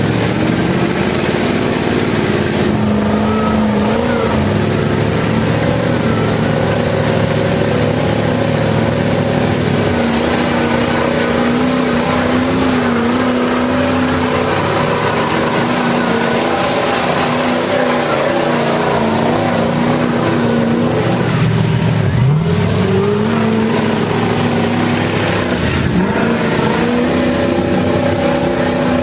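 Off-road truck engine running hard at high revs in mud. Twice in the last third the revs drop sharply and climb back up.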